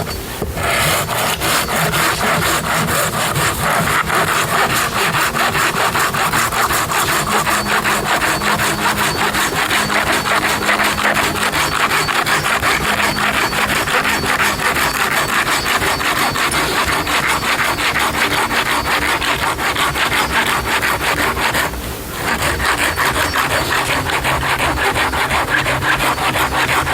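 Hand saw cutting through wood in steady, continuous strokes, with one short pause about 22 seconds in.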